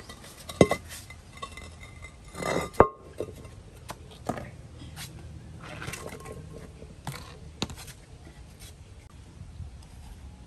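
Metal and plastic basins and bowls knocking and clattering as they are turned over and set down, with scattered knocks and short scraping clatters; one sharp knock about three seconds in is the loudest.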